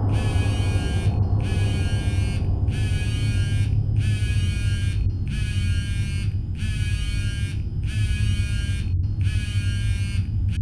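Mobile phone ringing with a repeating electronic buzz, about one buzz a second with short gaps between, over a steady low drone.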